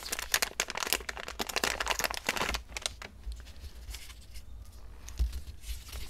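Crinkling and rustling of a shiny plastic bag being opened and a small DC-DC converter with its cables pulled out. Dense crackling for the first two and a half seconds, then quieter scattered rustling.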